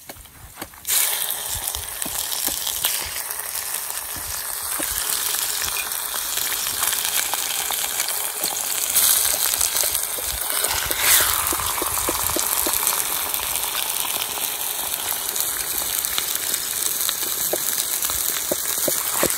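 Pork pieces sizzling in hot oil and caramel sauce in a clay pot, a steady crackling sizzle that starts about a second in as the raw meat hits the hot fat. A brief falling tone sounds a little past halfway.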